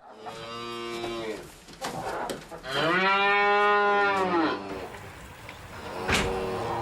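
A cow mooing twice: a shorter call, then a longer, louder one that rises and falls in pitch. A sharp knock sounds near the end.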